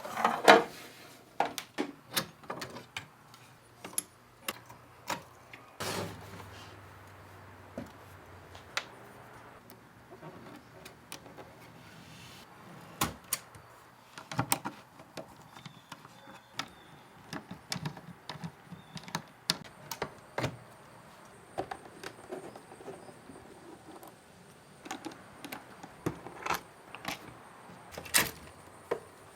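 Irregular metallic clicks, clinks and knocks as a Hermes 3000 typewriter is dismantled by hand, its carriage and body being removed. The loudest knock comes about half a second in.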